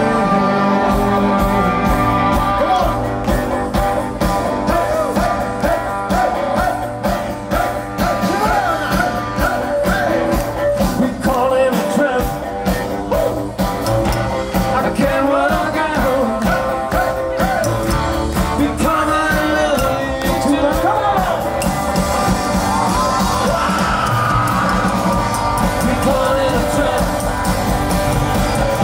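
Live rock and roll band playing: a man singing over electric guitar, upright bass and drums, with a steady driving beat.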